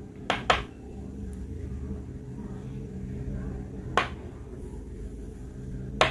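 Wooden stick tapping against aquarium glass: a few sharp knocks, two close together soon after the start, one about four seconds in and one at the end, over a low steady hum.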